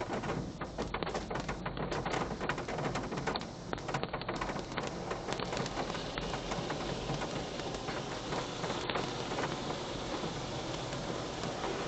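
Water jets from a Coleman Hanna Water Wizard touchless car wash spraying onto a car's body and windows, heard from inside the car. Uneven spattering in the first few seconds settles into a steadier hiss.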